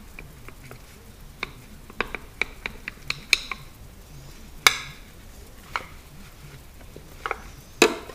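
Hard white plastic parts of a refrigerator dairy compartment clicking and knocking while they are handled and rubbed with a paper towel: a run of scattered sharp ticks, with two louder knocks, one about halfway through and one near the end.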